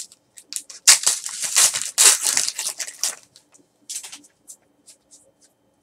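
Foil baseball-card pack wrapper being torn open and crinkled in the hands, a dense crackling for about two seconds. After it come scattered light clicks and ticks as the cards are taken out and handled.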